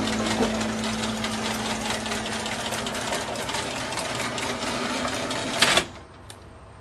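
A machine running with a rapid, steady mechanical clatter, which stops with a clunk near the end.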